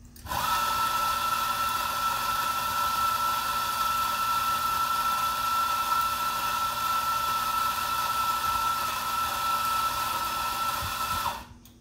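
Ceado E37J flat-burr electric coffee grinder running a timed 11-second grind of coffee beans: a steady high motor whine over the rasp of the burrs. It starts just after the beginning and cuts off shortly before the end when the timer stops it.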